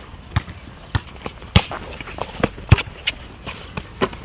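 A series of hard thumps on a hard surface, irregularly about one to two a second, over a low steady background.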